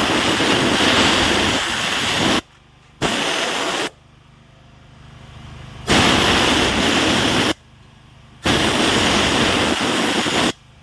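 Pressure washer gun blasting water into a Range Rover 5.0 engine block in four bursts, each starting and cutting off sharply as the trigger is squeezed and let go. A generator and air compressor hum steadily underneath.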